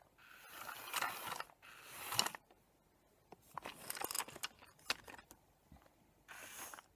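Tomy remote-control Eevee toy's small geared motor whirring and clicking as it drives, in three short runs that start and stop.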